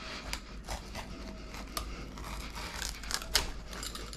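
Pizza wheel rolling through the baked crust of an apple galette and scraping the wooden board, with small irregular crackles as the crust breaks.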